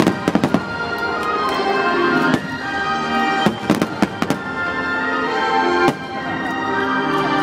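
Aerial fireworks shells bursting with sharp bangs, a quick cluster just after the start and another around three to four seconds in, with single bangs between, over the show's continuous music score.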